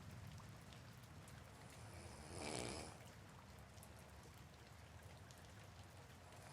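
Soft rain with faint scattered drops, under a sleeping person's slow breathing; one louder breath swells and fades a little over two seconds in.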